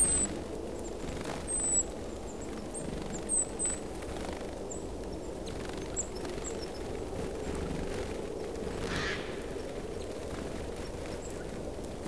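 Small songbirds giving short, thin, high-pitched calls, several louder ones in the first few seconds and fainter, scattered ones after, over steady low outdoor background noise. A brief soft rustle comes about nine seconds in.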